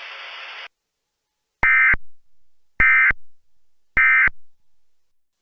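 Emergency Alert System end-of-message data bursts: three short, identical bursts of warbling two-tone digital data, about a second apart, marking the end of the weather radio alert. A steady hiss cuts off less than a second in, before the first burst.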